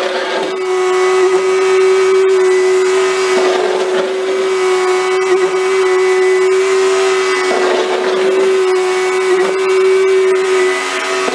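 Bobcat skid-steer loader's engine running at a steady, constant pitch while it plows snow, with a rougher, noisier sound swelling in twice.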